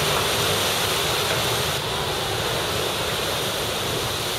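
Shrimp cutter under way: a steady low engine drone mixed with water rushing along the hull and wind over the microphone.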